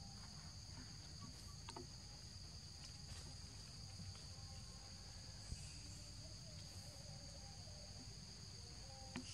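Faint, steady high-pitched drone of forest insects in two even bands, over a low rumble, with one soft thud about five and a half seconds in.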